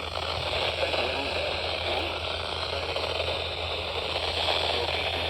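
Radio reception static: a steady hiss with faint crackle over a constant low hum.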